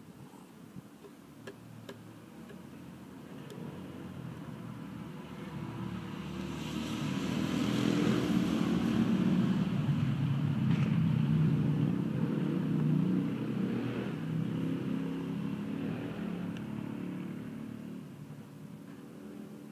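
A passing vehicle's engine slowly swells, is loudest about halfway through, and fades away again.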